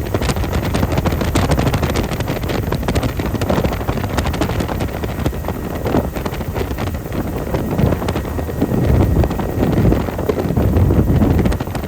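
Helicopter in flight: steady rotor and engine noise mixed with wind buffeting the microphone, swelling in gusts.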